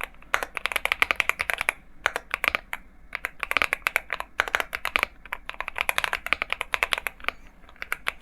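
Typing on a MonsGeek M1 mechanical keyboard with Akko V3 Cream Yellow Pro linear switches. The keystrokes come in quick runs of clacks, broken by short pauses.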